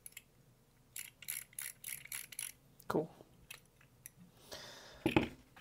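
Small metal fidget toys clicking and clinking as they are handled. A quick run of light metallic clicks comes about a second in, followed by a couple of duller knocks.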